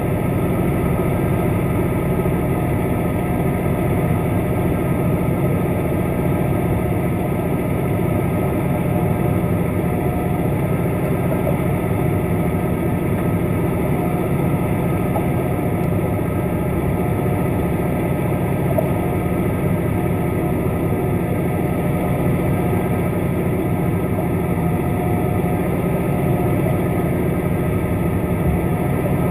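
A vessel's engine running steadily, heard underwater: an even, low drone that doesn't change.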